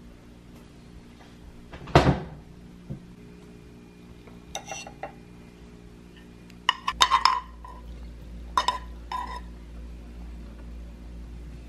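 Kitchen utensils and dishes knocking and clinking: one heavier knock about two seconds in, then several light clinks with a short ring, over a low steady hum.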